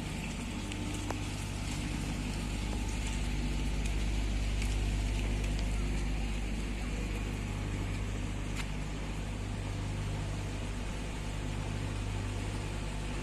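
An engine running steadily with a low, even hum, most likely the machinery of a docked ro-ro ferry.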